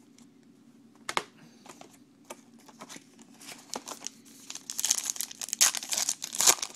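A trading-card pack wrapper being handled and torn open. A few light clicks and taps come first, then a dense burst of crinkling in the last couple of seconds, over a faint low steady hum.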